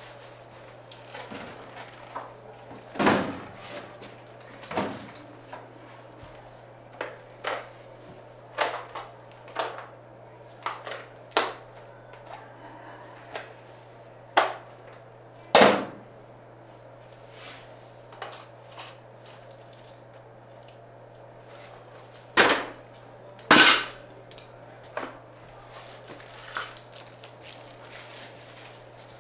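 Irregular knocks and clatters of small hard objects being handled and set down while tidying, loudest about three seconds in, around sixteen seconds, and twice near twenty-three seconds.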